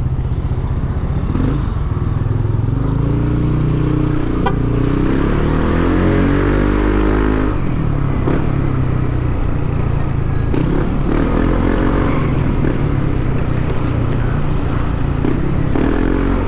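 Yamaha NMAX scooter's engine running under a rider, its pitch climbing steadily for several seconds as it accelerates, then easing off and holding a steadier pace, over a constant low rumble.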